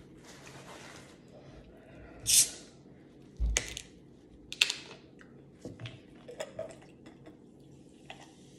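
Plastic bottle of cola twisted open, releasing a short, loud fizz of escaping gas, followed by a few sharp clicks and knocks of the cap and the bottle on the table. Near the end the soda begins pouring into a glass.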